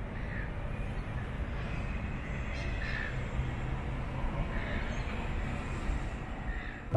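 Outdoor urban ambience: a steady low rumble with a few faint, short bird chirps scattered through.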